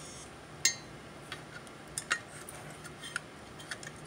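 Light clicks and taps of a circuit board being fitted into the metal enclosure of a BrightSign HD224 media player: about five short, sharp ticks, the loudest just after half a second in.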